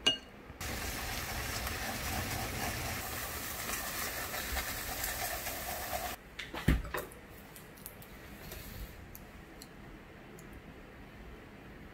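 Eggs sizzling in a frying pan while being scrambled, a steady hiss that cuts off suddenly after about five seconds. Then a single sharp knock, followed by quiet room tone.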